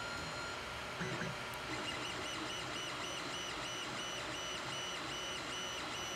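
3D printer running: the steady whir of the print head's blower fan, joined from about two seconds in by the stepper motors' pitched whine, which starts and stops about twice a second as the head moves back and forth laying down lines. There is a brief low sound about a second in.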